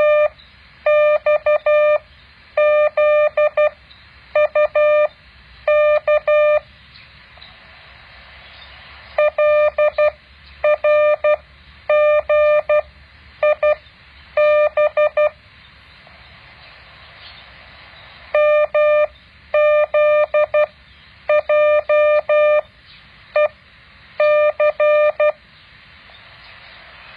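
Morse code practice tone: a single steady mid-pitched beep keyed on and off in dots and dashes, sent character by character with short gaps and a longer pause after about every five characters, over a faint steady hiss.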